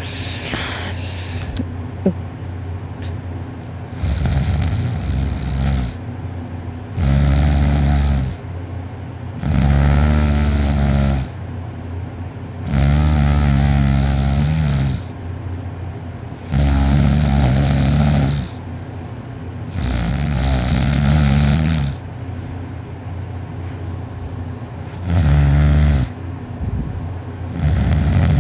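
A man snoring heavily in his sleep: about eight loud snores, each one to two seconds long, coming every few seconds with one longer pause near the end.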